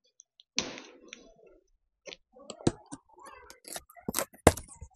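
Box cutter slicing the packing tape on a cardboard carton: a short scrape about half a second in, then irregular sharp clicks and knocks as the blade and hands work along the cardboard.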